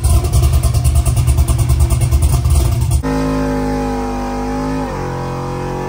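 Cammed 6.0 LS V8 truck engine through a long-tube, dual 3-inch exhaust: a loud, choppy, rapidly pulsing rumble for about three seconds, then a steadier drone that drops in pitch about five seconds in.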